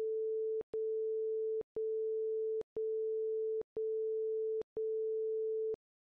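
Interval timer's electronic countdown beeps: six long beeps of one steady mid-pitched tone, one a second, each starting and stopping with a faint click. They count down the last seconds of a work interval.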